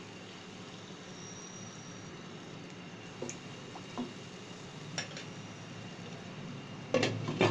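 A wooden spatula taps and scrapes in a nonstick pan as chicken pieces are pushed around in simmering broth. There are a few light knocks, then a louder clatter near the end, over a steady faint hiss.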